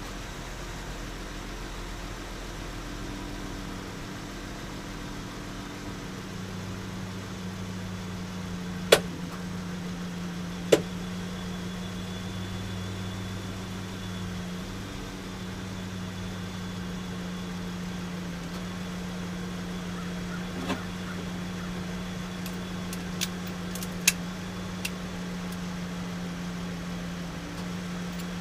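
A steady low mechanical hum, with two sharp knocks about nine and eleven seconds in and a few lighter clicks near the end.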